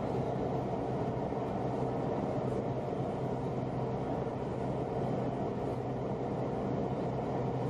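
Steady rumble of a moving vehicle with a low, even hum.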